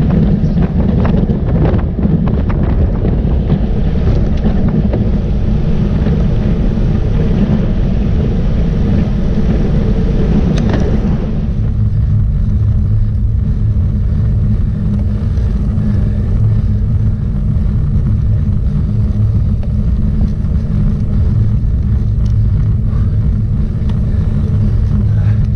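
Steady low rumble of wind buffeting the microphone of a camera on a moving road bike. A higher hiss over it drops away about eleven seconds in, leaving mostly the low rumble.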